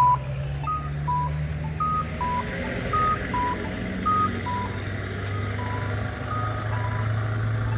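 Accessible pedestrian crossing signal sounding its cuckoo walk tone, a high note then a lower note, repeating about once a second, with a low steady hum beneath.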